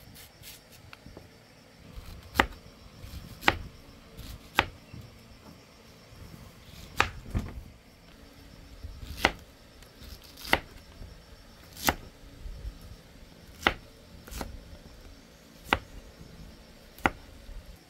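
A knife chopping on a wooden cutting board: about a dozen sharp, separate strikes, roughly one to two seconds apart.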